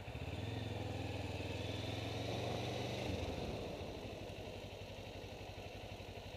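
Motorcycle engine running while riding, heard through a camera mounted on the rider's helmet visor. It is louder for the first three seconds, then eases back.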